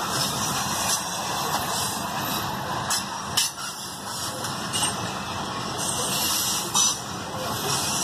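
Loaded grain hopper cars of a freight train rolling past on metre-gauge track: the steady rumble and hiss of steel wheels on rail, with a sharp knock about three and a half seconds in and another near seven seconds.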